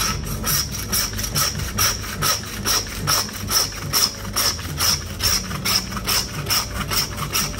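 Hand meat saw (bow-frame butcher's bone saw) cutting back and forth through the bone of a dry-aged beef leg, in an even rhythm of about two to three rasping strokes a second.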